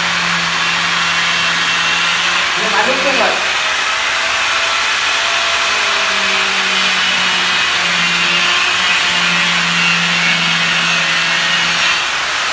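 Handheld electric angle grinder running and cutting into a piece of frozen, rock-hard fruit: a steady high grinding hiss over a motor hum that wavers as the disc bites.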